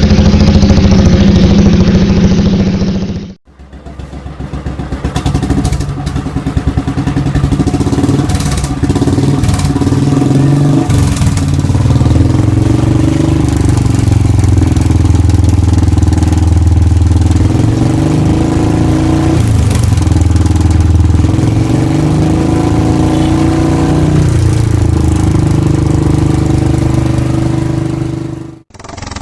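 Royal Enfield motorcycle exhausts with aftermarket silencers: one bike's thump cuts off about three seconds in, and after a brief gap another starts running, with the throttle blipped up and back down several times before it too cuts off near the end.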